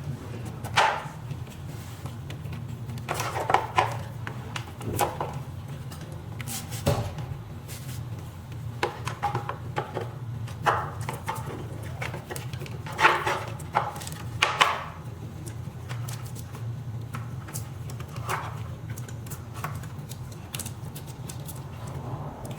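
Scattered knocks, clicks and rustles of parts and cables being pushed back into an electric scooter's deck, over a steady low hum.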